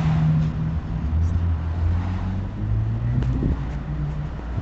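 Engine and road noise of a moving vehicle, heard from inside the cab: a low, steady hum whose pitch shifts as the vehicle creeps along.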